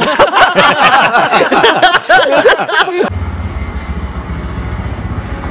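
A loud warbling, pitch-bending sound for about three seconds, then a vehicle engine idling steadily with a low rumble.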